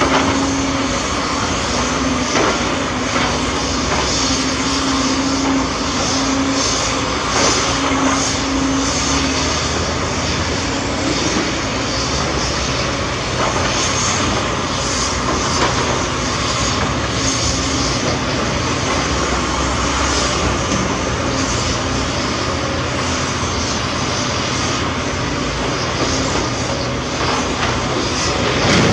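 Diesel engines of heavy earthmoving machinery, an excavator and dump trucks, running steadily under load. A steady tone sounds for the first third, and a few faint knocks are heard now and then.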